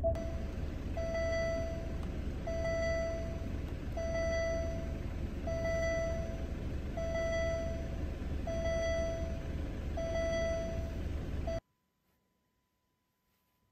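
Alfa Romeo Giulia's cabin warning chime, a steady tone repeating about every one and a half seconds over the low hum of the car running. The sound cuts off abruptly near the end.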